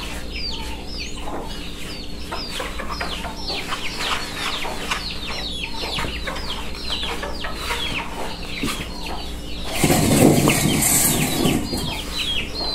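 Chickens calling, a steady stream of short, high peeps that fall in pitch, with a louder burst of wing-flapping near the end.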